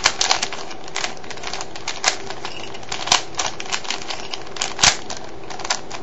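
Rubik's cube layers being twisted quickly by hand through a sequence of moves: a fast, irregular run of plastic clicks and clacks, with a few louder clacks.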